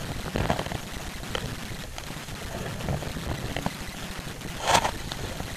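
Sculling boat under way: water rushing and trickling along the hull and oars, with small knocks and one louder splash of the oar blades about four and a half seconds in.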